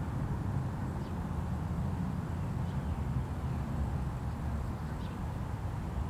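Steady low background rumble, with a few faint, short, high bird chirps about one, three and five seconds in.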